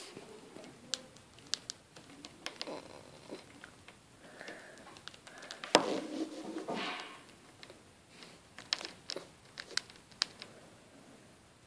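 Dwarf hamster nibbling a piece of red fruit: scattered tiny clicks and crunches of small bites, with a louder rustle about six seconds in.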